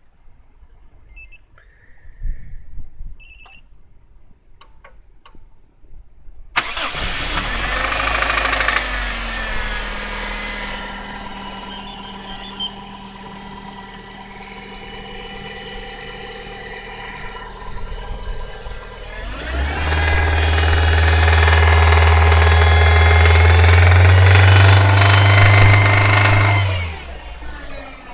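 Toyota 4A-FE 1.6-litre inline-four starting after a few faint clicks, flaring high and settling to idle, then held at raised revs for several seconds before dropping back to idle. The owner reports a knock for the first few seconds after starting and again around 2400–3000 rpm, cause unknown.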